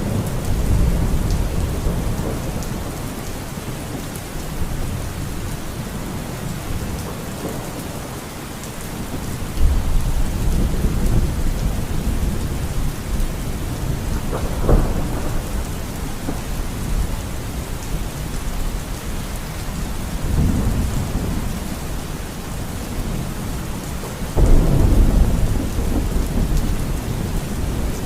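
Steady rain falling, with deep low rumbles swelling several times, the strongest near the end, and one sharp crack about halfway through.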